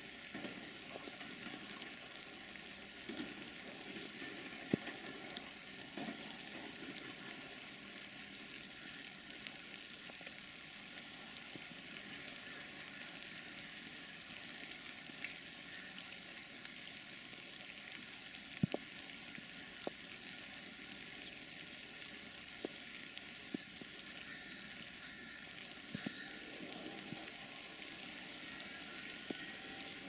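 Steady hiss of light rain falling, with scattered sharp ticks of drops striking something close by.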